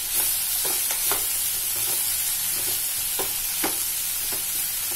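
Chopped broad beans (avarakkai) sizzling in oil in a metal kadai while a metal spatula stirs them, scraping the pan about seven times over a steady frying hiss, mixing in the turmeric powder just added.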